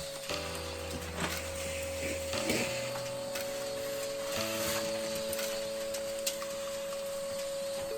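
Background music of held chords that change every couple of seconds, with light rustling and a few faint clicks underneath.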